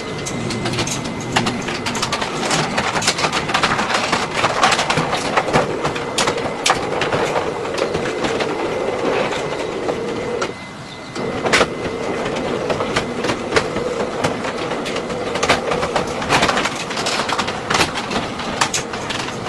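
Motorized roller shutter running, its tubular motor humming steadily under a constant clatter and clicking of the rolling slats. It stops briefly about halfway through, then starts again.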